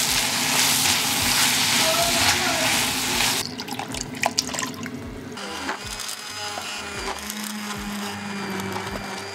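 Carrots, onion and tomato sizzling in a pot as they are stirred, then soy milk poured in. About five seconds in, a steady low hum starts.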